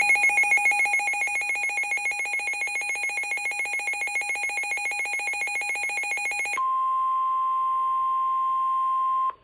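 A NOAA weather radio sounding a severe thunderstorm warning. The receiver's alarm beeps rapidly for about seven seconds. It then gives way to the steady single-pitch 1050 Hz NOAA warning alert tone, which cuts off shortly before the end.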